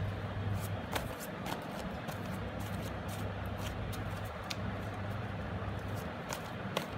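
Aquarium pump running with a steady low hum under a soft hiss, with a few faint clicks.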